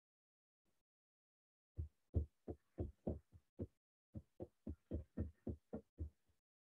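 A run of about sixteen short, soft knocks or taps, unevenly spaced at three or four a second, starting about two seconds in and stopping about a second before the end.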